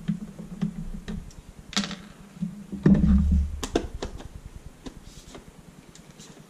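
Plastic clicks and knocks as the screwless outer shell of a Larc M19 BB machine gun is lifted and pulled at to free the hand grip and trigger housing. A heavier thump comes about three seconds in, followed by a quick run of sharp clicks.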